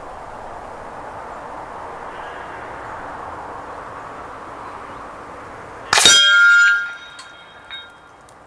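Hanging steel plate target struck by a .50-calibre air rifle slug: a sudden loud clang that rings on for about a second, then a fainter second clang as the swinging plate knocks again.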